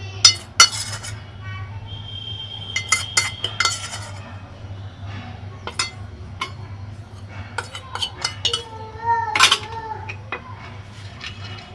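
A metal spoon clinking and tapping against a glass dish in a series of sharp clinks, loudest in the first second. A short wavering voice-like sound comes about nine seconds in.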